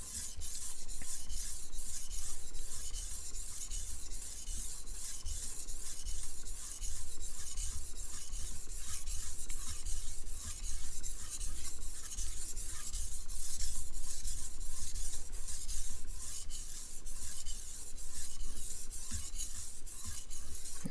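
Chef's knife blade stroked back and forth on a whetstone: a rhythmic gritty scraping of roughly three strokes a second. The second side of the edge is being sharpened to raise a burr.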